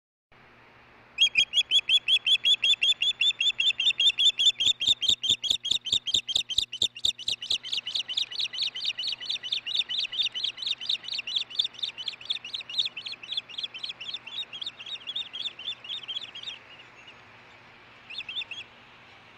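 Osprey calling: a long, rapid series of high chirping notes, about five a second, that goes on for some fifteen seconds and then stops, with a short burst of the same notes near the end.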